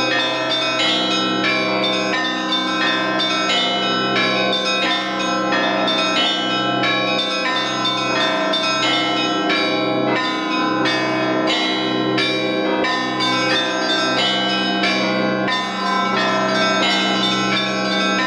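Russian Orthodox church bells rung by a single bell-ringer (zvon): many small and middle bells chime rapidly in a dense, overlapping pattern, and the deepest bell keeps an even beat beneath them.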